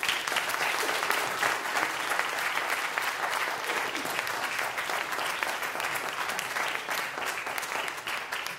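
Audience applauding, starting at once and beginning to fade near the end.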